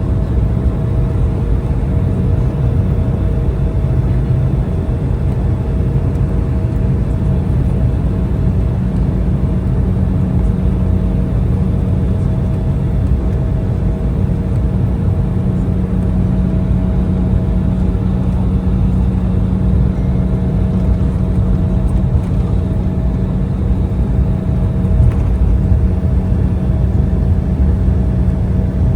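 Steady low rumble inside the cabin of an Embraer E175 jet on the ground after landing, with a few steady hums running under it.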